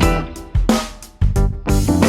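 Background music: guitar with bass and a drum kit, on a steady beat.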